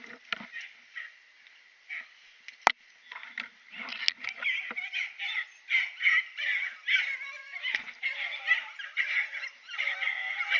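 A pack of beagles baying, several dogs' voices overlapping in a steady chorus from about three and a half seconds in. A single sharp snap comes just before, about two and a half seconds in.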